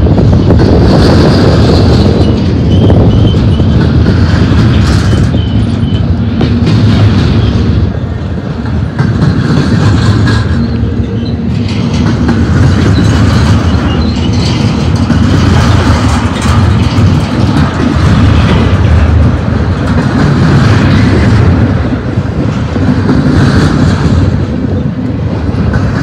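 Loaded intermodal container well cars of a freight train rolling past at close range: a steady, loud rumble of steel wheels on the rails.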